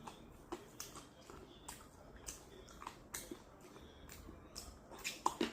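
Close-miked chewing and lip-smacking while eating chicken wings: irregular small wet clicks, with a louder cluster near the end.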